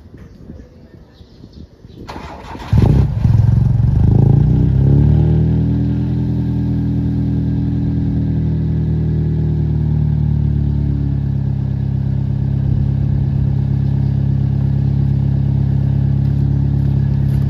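Car engine started cold: a short crank, then it catches about two and a half seconds in, runs at a raised, unsteady idle for a few seconds and settles into a steady idle.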